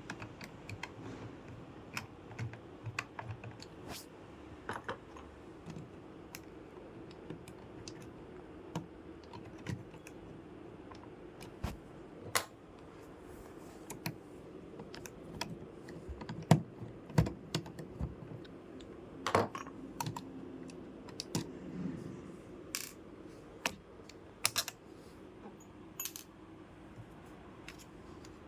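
Irregular clicks, taps and light clinks of hands handling computer hardware while installing RAM, over a faint steady hum.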